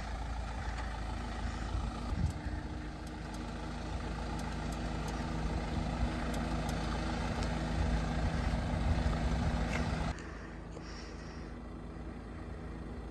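Mahindra Thar 4x4's engine running at low speed, a steady low rumble as it creeps over a dirt field track. About ten seconds in the sound drops to a quieter, more distant engine hum.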